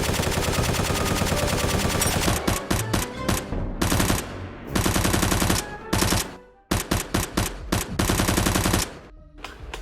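Rapid automatic gunfire, a long continuous stream followed by several short bursts with brief pauses between them, ending about a second before the end.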